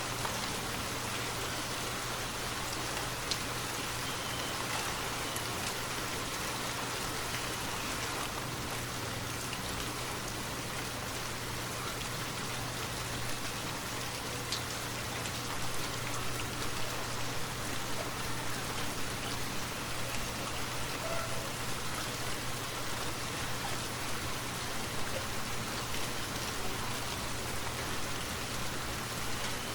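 Steady rainfall, an even hiss of rain with scattered sharper ticks of single drops, the drop hits growing a little busier about halfway through.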